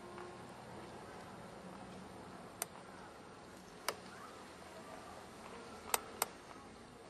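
Faint steady outdoor background noise with four sharp, short clicks at uneven intervals, the last two close together near the end.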